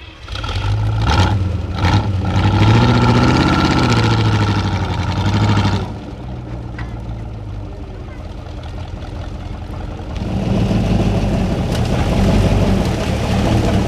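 Off-road trial truck's diesel engine revving hard under load as it climbs, pitch swinging up and down, with two sharp knocks about a second in. The engine eases off about six seconds in and revs up again about ten seconds in.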